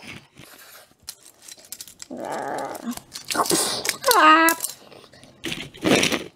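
A child making vocal sound effects for a toy-car fight: a growl-like noise, a hiss, then a short yell falling in pitch. Light clicks of plastic toy cars on a tile floor come in between.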